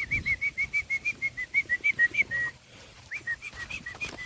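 A bird calling a fast series of short, clear whistled notes, about six a second, pausing briefly about two and a half seconds in, then starting again.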